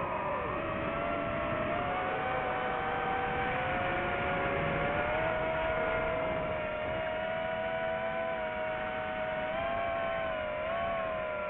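DJI FPV drone's motors and propellers whining steadily, a chord of several tones that wavers in pitch as the throttle changes, dipping near the start and rising briefly near the end.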